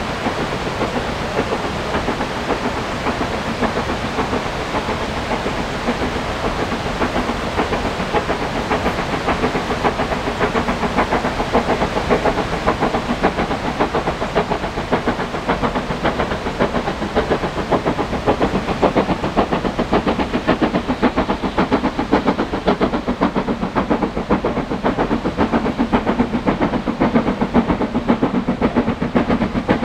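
Steam locomotive working hard up a steep 1 in 49 gradient, its exhaust beating in a rapid, even chuff with steam hiss, getting louder in the second half as it approaches.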